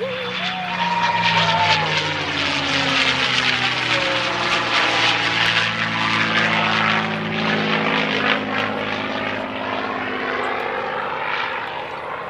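A North American P-51D Mustang's Packard Merlin V-12 engine howling at display power as the fighter makes a low pass. The engine note bends in pitch as it goes by and eases a little near the end.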